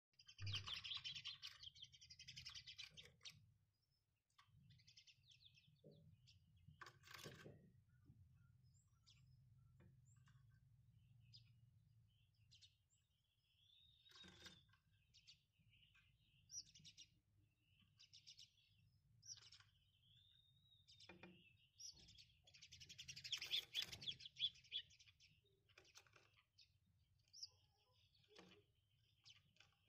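House sparrows chirping: a burst of rapid chattering at the start and another about two-thirds through, with faint scattered single chirps between.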